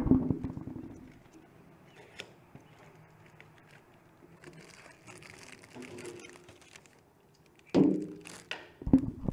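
Faint rustling and clicking of a cardboard cookie box being opened and a clear plastic cookie tray pulled out of it. There is a sharp knock at the start and a louder bump from handling about eight seconds in.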